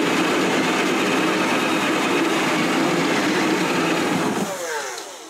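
A cordless drill boring a large hole up through a wooden cabinet bottom with a 1-1/2-inch Forstner bit, running steadily at full speed. Near the end the trigger is released and the motor winds down with falling pitch.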